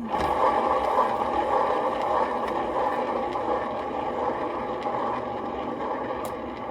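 Canvas spinner for acrylic pouring whirring steadily inside a hard plastic spinner box as it spins the canvas. It starts suddenly right at the beginning and eases off slightly over the next few seconds.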